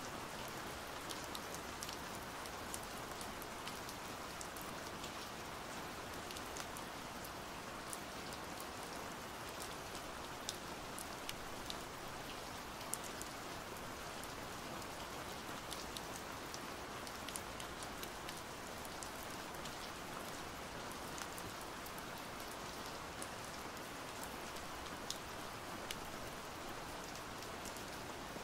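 Heavy rain pouring steadily, an even hiss with scattered sharp drop taps.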